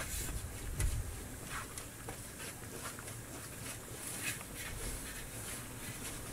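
Silicone pastry brush spreading oil over a large metal tray in short, irregular strokes.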